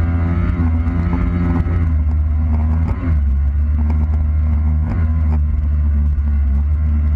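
Kawasaki 800 SX-R stand-up jet ski's two-stroke twin engine running at speed over rushing water spray, its pitch dipping briefly about three seconds in.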